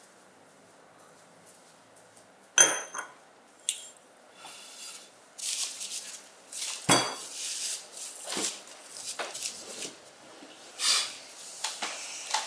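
A china cup set down on its saucer with a sharp, ringing clink about two and a half seconds in, then another ringing clink of tableware a few seconds later. Soft rustles and light knocks follow as people shift at the table.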